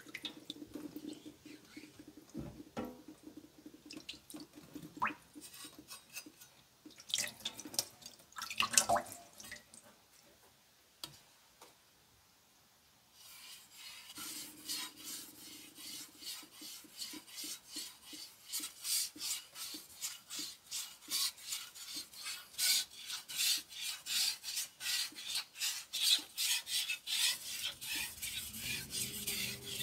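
A chef's knife being polished on a fine whetstone. Scattered clicks and handling sounds come first, then a short pause. About thirteen seconds in, a steady run of rhythmic scraping strokes of the blade across the stone begins.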